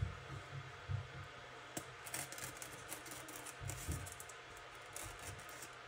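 Faint handling noises from small objects being moved on a table: scattered light clicks, taps and rustles.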